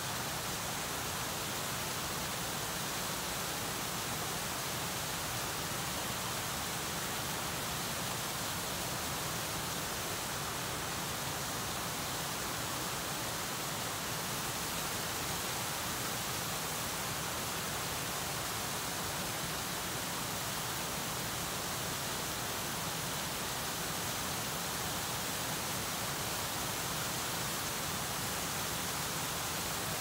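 Gentle waterfall on a small river, water pouring over the drop in a steady, even rush.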